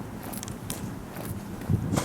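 Footsteps of a person walking, about two steps a second, over a low rumble.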